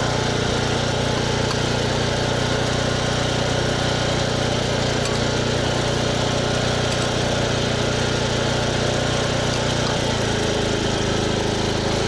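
Portable generator engine running steadily with an even hum; its pitch drops slightly about ten seconds in.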